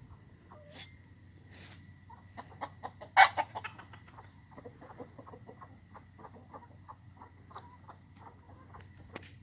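Chickens clucking: a steady string of short, irregular clucks, with one louder call about three seconds in.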